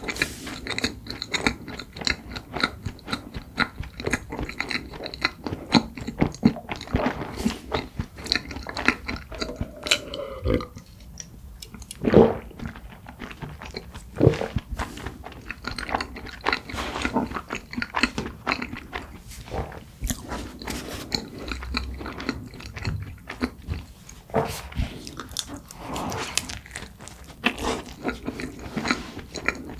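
Close-miked biting and chewing of cream-filled red bean buns: a dense run of small wet mouth clicks and smacks, with a few louder ones a little past the middle.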